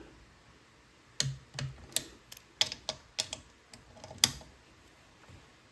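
Torque wrench being worked on the oil pan cover bolts of a Briggs and Stratton small engine: a run of about ten sharp, irregular metallic clicks over some three seconds as the bolts are brought to 13.5 foot-pounds.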